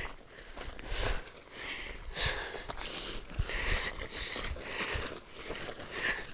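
A hiker's footsteps on a dirt trail at a steady walking pace, about one step every 0.7 seconds, with breathing close to the microphone.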